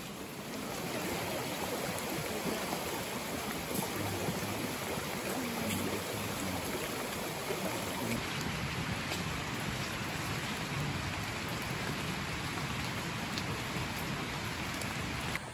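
Steady rushing water noise, an even wash with no distinct events.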